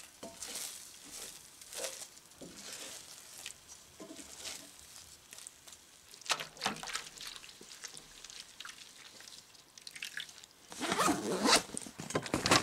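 A wooden spatula scraping and stirring scrambled eggs in a cast-iron skillet, heard as a series of soft, short scrapes. Near the end comes a louder burst of rustling and rasping.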